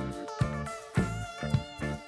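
Background music with a steady beat and bass line, about two beats a second.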